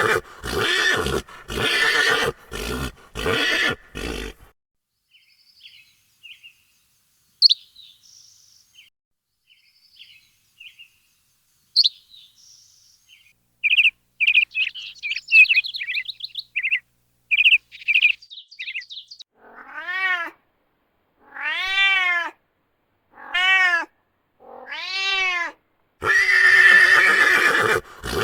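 A horse neighing, then small birds chirping in short quick calls, then a cat meowing four times, each meow rising and falling in pitch, and a horse neighing again near the end.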